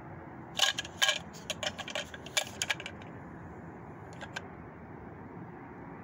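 A quick run of light, sharp clicks and clatters, about a dozen in two and a half seconds, then two fainter ones about four seconds in: a hard plastic R&T toilet fill valve being picked up and handled.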